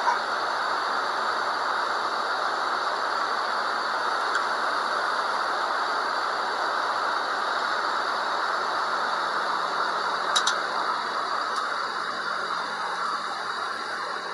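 Steady aircraft cabin noise, an even hiss from a small jet in flight, with a couple of sharp clicks about ten seconds in.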